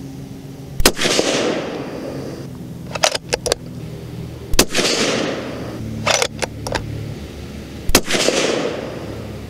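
Three suppressed shots from a Sig Cross bolt-action rifle in .308 Winchester, about three and a half seconds apart. Each report trails off over about a second. Between shots there are quick metallic clicks of the bolt being worked to eject the spent case and chamber the next round.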